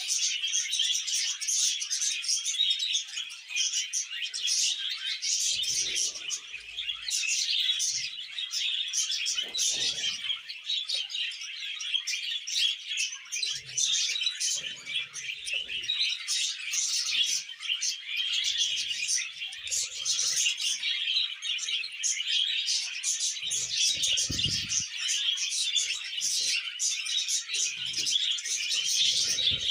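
Budgerigars chirping and chattering without a break, a dense stream of quick high chirps.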